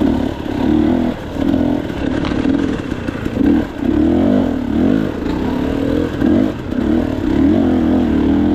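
KTM 300 XC-W's two-stroke single-cylinder engine being ridden on the throttle, its pitch rising and falling again and again as the revs go up and down.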